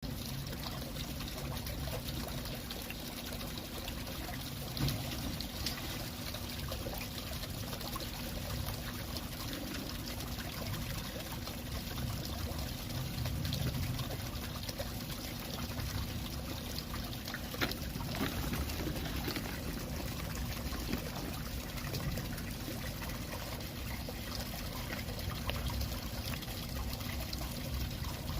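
Water pouring and trickling steadily into a koi pond, with a couple of brief sharper sounds on top.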